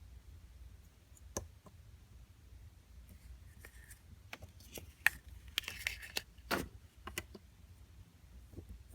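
Small plastic toys and packaging being handled: scattered clicks and taps with short crinkling rustles, busiest in the middle of the stretch.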